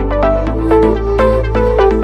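Electronic music with a steady beat, a sustained bass and a stepping synth melody, without vocals; the bass moves to a new note about half a second in.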